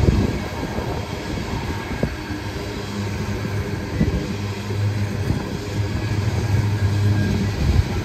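Loaded aluminum coal hopper cars rolling past: a steady rumble of steel wheels on rail, with a few sharper knocks as wheel sets go by.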